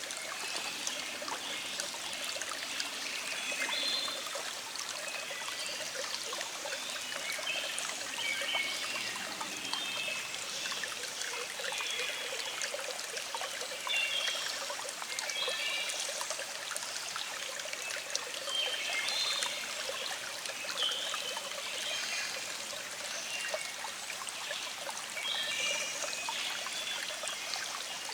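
Small stream flowing with a steady trickle, and songbirds singing short, repeated phrases every second or two in the background.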